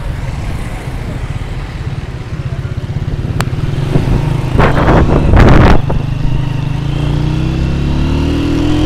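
Honda motorcycle engine running under way. About halfway in there is a loud rushing noise lasting just over a second. Near the end the engine's pitch rises steadily as the bike accelerates.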